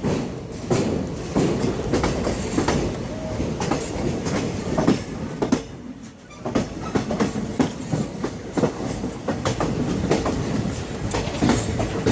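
Sound effect of a train running, its wheels clattering over rail joints in an uneven run of clicks over a steady rumble. There is a short lull about six seconds in, and the sound cuts off abruptly at the end.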